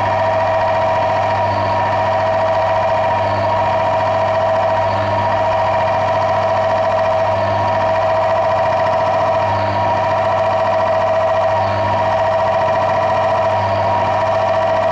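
Electric motor of a friction-and-wear test rig running steadily, its loaded shaft turning against a bearing in additive-treated oil at nearly double the test pressure without stalling. A steady hum with a slight throb about every two seconds.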